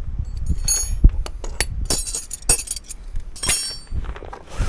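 Metal parts and tools clinking and tapping against each other, several sharp clicks, a couple of them ringing, over steady wind buffeting the microphone.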